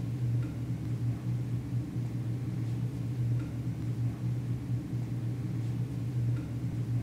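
A steady low hum with a faint even hiss above it, and a few faint short high pips every few seconds.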